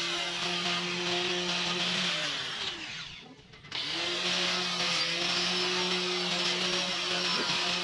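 Angle grinder with an abrasive disc grinding on a stainless steel railing panel: a steady high whine with a harsh hiss of disc on metal. It is switched off about two and a half seconds in and spins down, then starts up again about a second later and runs steadily on.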